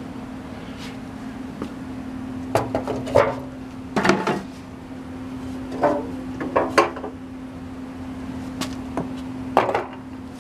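Metal solvent cans being set back down and shuffled into place on a concrete pedestal: about ten irregular clanks and knocks, over a steady low hum.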